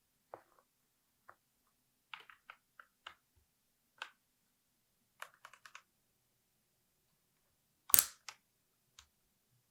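Sparse clicks and taps of plastic keycaps, a few at a time in short clusters, with one louder knock about eight seconds in.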